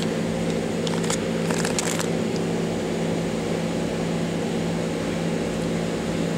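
Steady low machine hum made of several fixed tones, with a few light clicks in the first two seconds.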